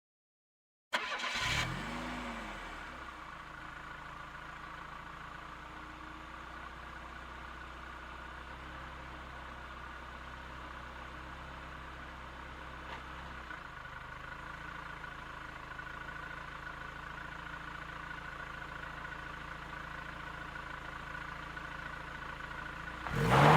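A car engine starting: it catches with a short rev that rises and falls, then settles into a steady idle. Just before the end a much louder engine sound cuts in.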